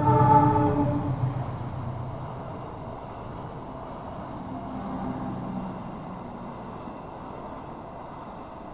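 Horn of a CC 206 diesel-electric locomotive sounding one short blast right at the start, the loudest sound, followed by the steady rumble of the train running, which gradually eases off.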